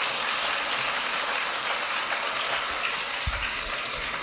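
Audience applauding steadily in a large meeting room, a dense crackle of many hands clapping, with a couple of low thuds about three seconds in.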